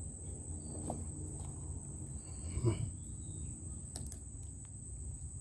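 A steady high-pitched insect drone under low rustling and handling noise, with a brief faint voice sound about two and a half seconds in.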